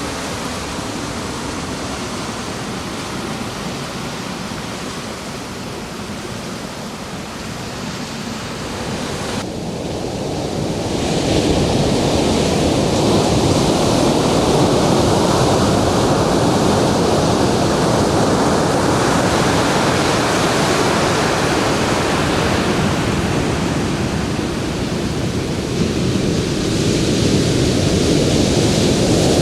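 Ocean surf: waves breaking and washing up the beach in a steady rush. The surf grows louder about ten seconds in, eases a little, then swells again near the end.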